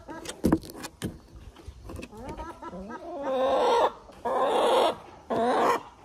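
Chickens clucking, then three loud, harsh squawks in the last three seconds, each about half a second long. A few sharp clicks come near the start.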